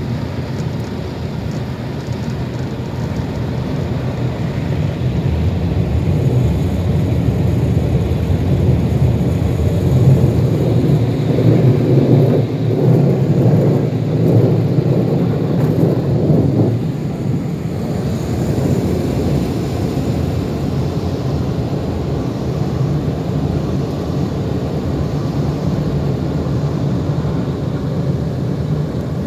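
Car wash air dryer blowers running, heard from inside the car as a loud, steady rushing rumble that is strongest in the middle and eases off somewhat afterwards.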